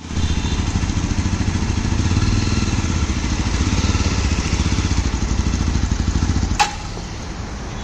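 Yezdi Roadster motorcycle's 334 cc single-cylinder engine running steadily at low revs as the bike is ridden slowly. About six and a half seconds in there is a sharp click, after which the engine sound drops much quieter.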